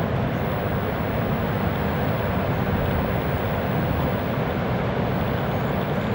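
Steady roar of big ocean surf breaking: a dense, even rumble with no separate breaks.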